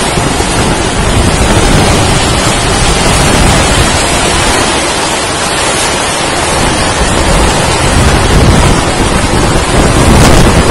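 Tornado winds rushing loudly and without a break, buffeting the phone microphone.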